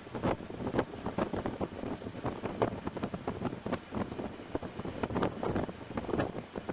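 Wind buffeting the microphone in an open-cab Ford Model T driving at road speed, in uneven gusts over the car's running engine and road noise.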